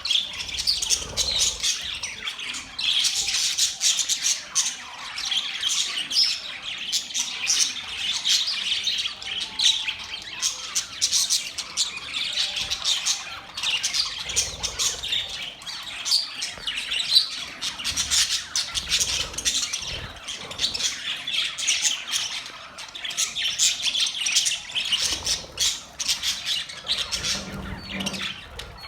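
Several budgerigars chirping and chattering together, a dense, unbroken stream of short high-pitched calls.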